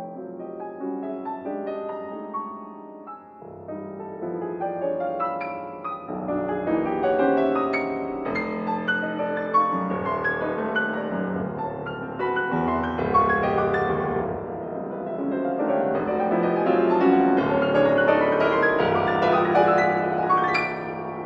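Steinway concert grand piano played solo: a classical piece that moves from a lighter passage into louder, fuller chords with deep bass notes, ending on a sharp accented chord.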